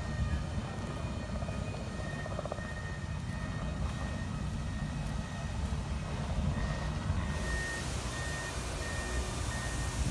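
Reversing alarm of a construction vehicle beeping in a steady repeated single tone, clearer in the second half, over a steady low rumble.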